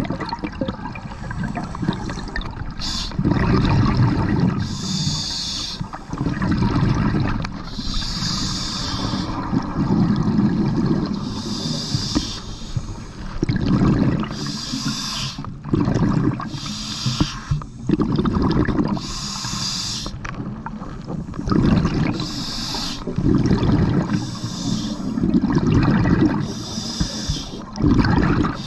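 Scuba diver breathing through a regulator underwater: slow, regular breaths, each a hiss of air drawn through the demand valve followed by a burst of rumbling, gurgling exhaust bubbles.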